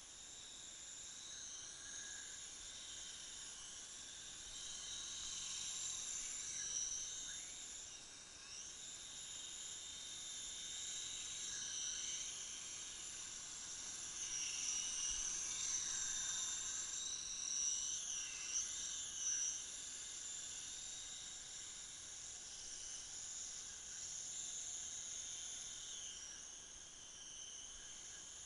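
Large remote-control helicopter's motor and rotors whining, the high pitch rising and falling as it is flown, loudest around the middle.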